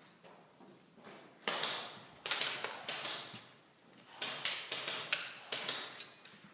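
Airsoft guns firing: about ten sharp snaps in irregular groups, some in quick pairs, starting about a second and a half in.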